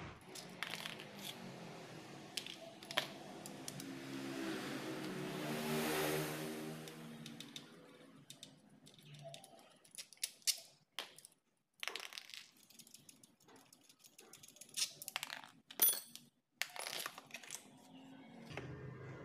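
Irregular clicks, taps and scrapes of hard plastic and metal as the JLD JX35 jack hammer's motor housing is worked loose and pulled apart by hand, busiest in the second half. In the first half a low hum swells and fades.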